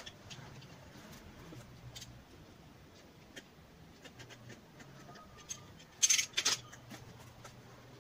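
A utility knife's blade scraping and slicing along packing tape on a cardboard box, with small scratches and clicks. About six seconds in come two short, louder rasps of tape and cardboard being cut or pulled apart.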